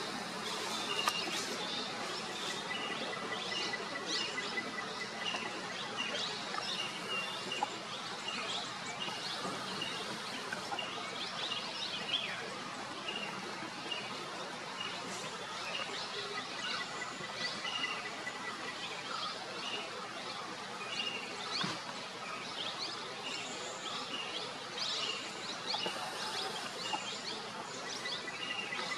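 Outdoor forest ambience: many birds chirping and calling over a steady background hiss, one of them repeating a short call about once a second. A thin, steady high tone comes and goes.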